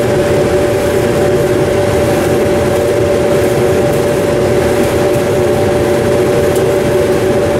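Samsung DV40J3000EW electric dryer running with its rear panel off: drum motor and blower fan giving a steady, loud hum with a few constant tones over a whoosh of moving air, during a test run of a temporarily spliced heating element.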